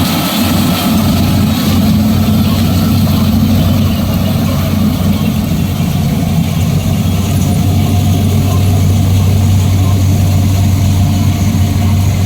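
Engine of harvesting machinery running steadily at a constant speed, a loud even hum with no change in pitch.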